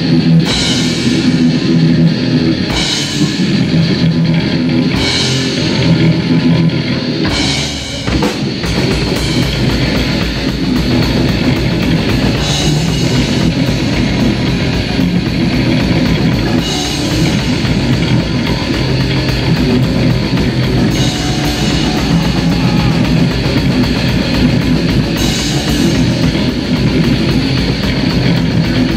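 Rock music with a drum kit and electric guitar. About eight seconds in there is a brief break, and the music comes back heavier, with a fast, dense beat in the low end.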